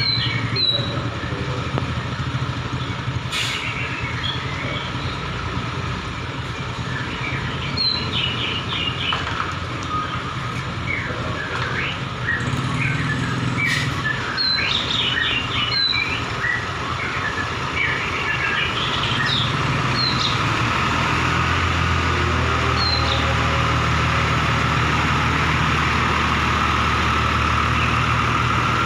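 Heavy truck engine running steadily at the concrete pour, growing louder and more even about two-thirds of the way through. Birds chirp over it on and off.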